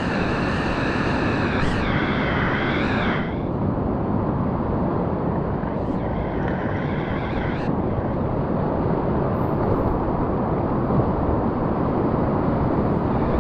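Whitewater rapids rushing steadily. Two drawn-out higher-pitched sounds ride over the rush, one in the first three seconds and another about six seconds in.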